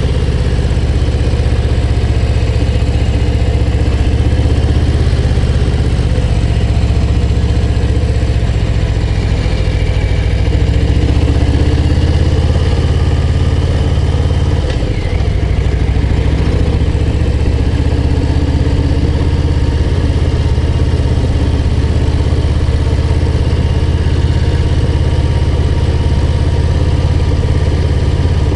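Harley-Davidson Low Rider ST's Milwaukee-Eight 117 V-twin running steadily under load on a mountain climb. Its low exhaust note dips briefly in pitch about halfway through, then picks up again.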